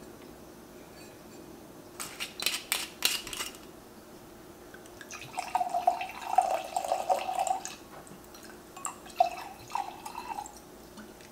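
A few sharp clicks about two seconds in, then white wine poured from a bottle into a stemmed wine glass, glugging and splashing, in two pours.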